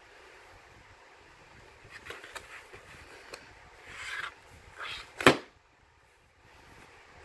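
A plastic VHS clamshell case being handled and turned over, with light rubbing and clicking from the plastic. A single sharp knock about five seconds in, the loudest sound, as the case is set down flat on the table.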